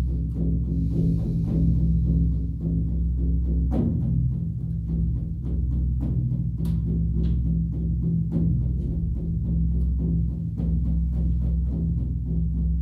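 Shamanic-style drumming: a steady beat of about four strokes a second over a low sustained drone.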